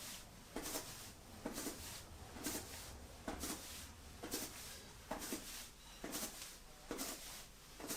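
Soft, regular footfalls of someone walking in place with knees raised, landing lightly on the floor about once a second.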